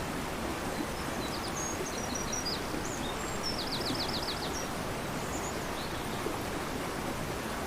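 Fast-flowing river rushing steadily, with a small songbird singing a short high song, a few chirps ending in a rapid trill, about a second to four seconds in.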